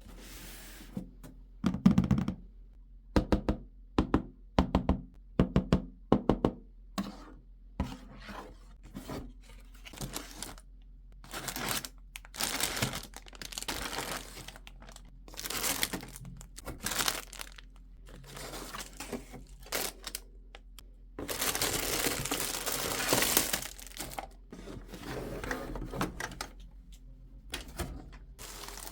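Toy packaging being opened by hand: sharp clicks and knocks of cardboard and plastic, then rustling, tearing and crinkling of plastic wrap. The crinkling is densest for about three seconds past the middle.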